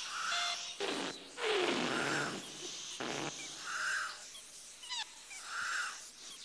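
Whimsical sound effects of the Pinky Ponk airship floating: breathy, puffing swells of air, one with a falling pitch, and soft hooting tones that repeat about every one and a half to two seconds.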